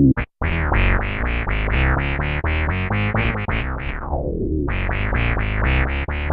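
Bass guitar played through an MXR MB301 Bass Synth pedal: a fast run of short synth-bass notes, each with a bright filter snap. Around four seconds in, one longer note's tone sweeps down to dark before the quick notes start again.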